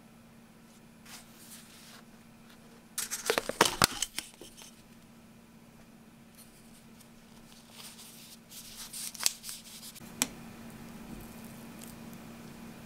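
Thin clear plastic lid crackling and clicking as it is pried off a plastic food cup, in a burst of sharp crinkles about three seconds in. Scattered plastic clicks and a sharp tick follow later as the cup and its contents are handled.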